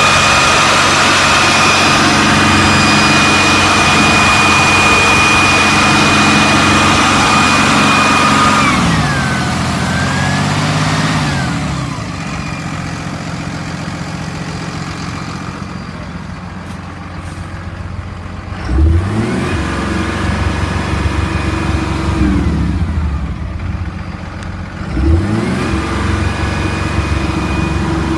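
PACCAR six-cylinder diesel truck engine running at a raised speed, with a high whine that follows the engine speed. About nine seconds in it drops back to idle, is revved up and let fall twice, and near the end settles at a raised speed again.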